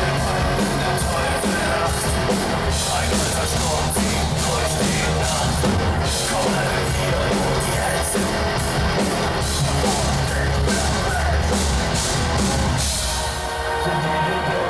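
Industrial metal band playing live: heavy drums, bass and distorted guitars in a dense, loud wall of sound. The loudness dips briefly near the end.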